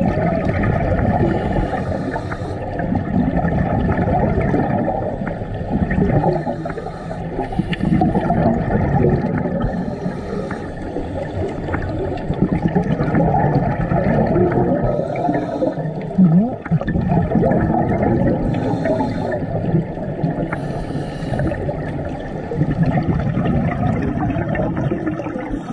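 Scuba diver breathing through a regulator underwater: a short hiss on each inhalation and a bubbling rumble of exhaled air that swells and fades every few seconds, mostly dull and low.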